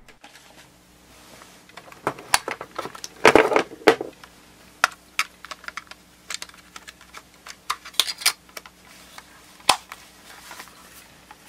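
Irregular light clicks and rattles of the all-plastic Sony Walkman WM-FX50 cassette player being handled while a AA battery is fitted, with a denser cluster of clicks about three to four seconds in.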